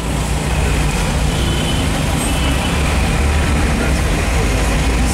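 Busy city traffic at close range: a steady low rumble of engines from the buses, cars and auto-rickshaws around, with road noise.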